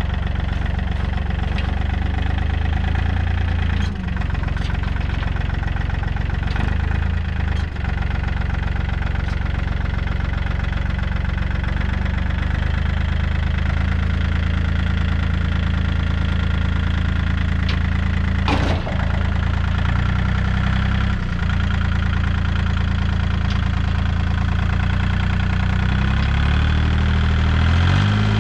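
Tractor engine running steadily, its speed shifting a few times, with a few sharp metal knocks; the loudest knock comes a little past halfway.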